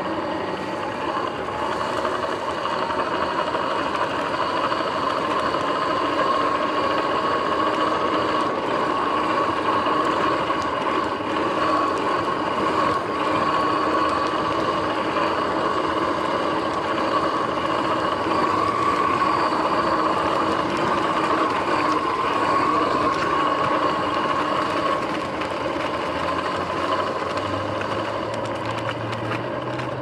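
Sur-Ron X electric dirt bike under way, its drivetrain giving a steady whine over tyre noise, a little louder through the middle. The grinding is put down to the front hub and jackshaft bearings going bad.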